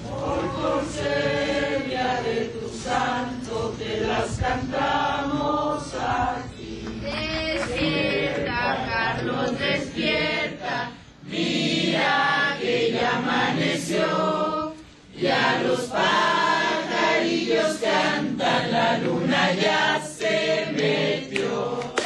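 A group of voices singing a birthday song together.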